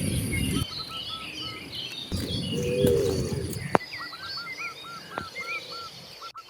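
Cattle mooing: a low call trails off in the first moment and another moo rises about two seconds in and lasts about a second and a half. Birds chirp throughout, with one repeating a short call many times in the second half.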